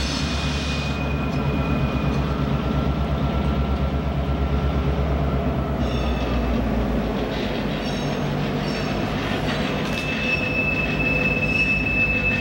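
A pair of EMD GP38-2 diesel locomotives approaching, their 16-cylinder two-stroke engines running with a deep pulsing rumble. A thin, high wheel squeal rises over it about ten seconds in.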